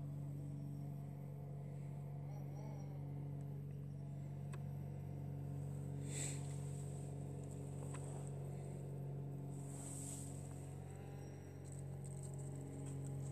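Steady motor hum with a buzz, holding one unchanging pitch, with a few faint ticks over it.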